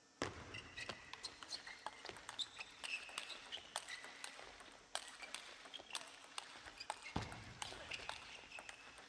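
Faint table tennis rally: a plastic ball clicking sharply off the bats and the table again and again, with short squeaks between the hits.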